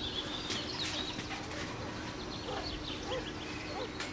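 Garden birdsong: many short, high chirps and twitters, joined by a few low, soft call notes in the second half.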